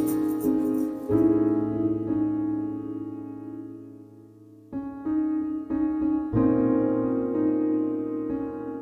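Background music on piano: soft sustained chords, one fading away about four seconds in before new chords are struck.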